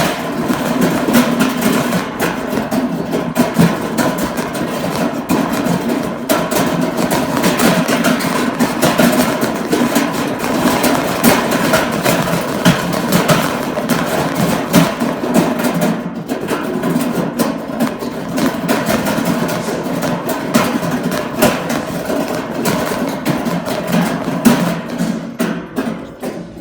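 Shopping cart rolling, its wheels clattering and rattling loudly with a dense stream of clicks, until it stops suddenly near the end.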